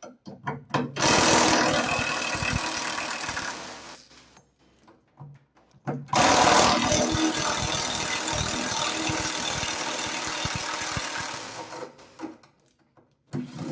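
Power drill-driver running twice in bursts of about three and five seconds, each starting abruptly and trailing off, as it backs out bolts holding the washing machine's motor assembly.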